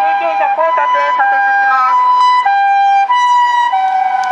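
Japanese ambulance siren sounding its two-tone hi-lo call, a higher and a lower note taking turns about every two-thirds of a second.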